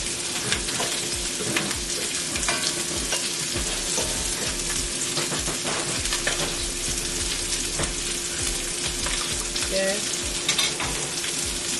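Salmon fillets sizzling in hot oil in a cast iron pan, with a spatula scraping and tapping against the pan bottom as pieces of onion are scooped out.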